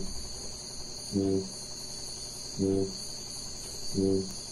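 Male kakapo booming: three short, deep booms about a second and a half apart, the mating call made to attract a female. Behind them a steady high insect chorus.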